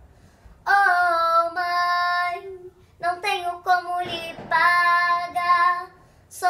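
A young girl singing with no accompaniment: three phrases of long held notes, with short pauses for breath between them.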